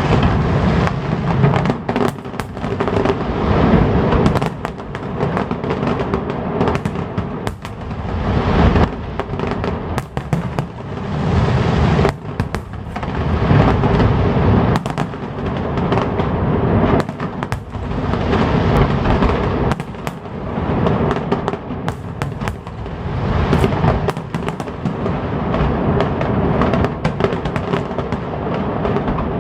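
Fireworks display with many shells bursting in quick succession, bangs and crackles overlapping without a break, over music playing underneath.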